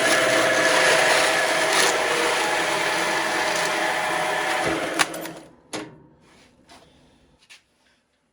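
Horizontal metal-cutting band saw slicing through a plastic computer keyboard: a loud, steady whirring rasp of blade and motor. About five seconds in the cut ends with a sharp click, the sound falls away, and a few light knocks follow.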